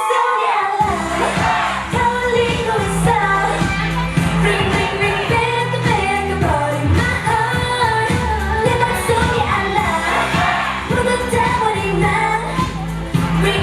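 K-pop dance track with female vocals over a steady bass and beat; the bass drops out briefly at the start and comes back about a second in.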